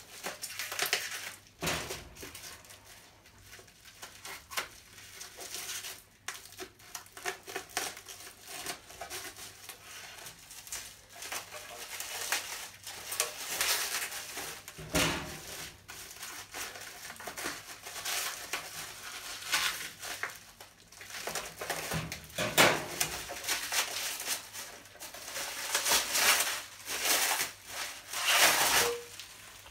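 Packaging being handled and unwrapped, crinkling and rustling on and off, with scattered sharp knocks and louder bursts of crumpling now and then.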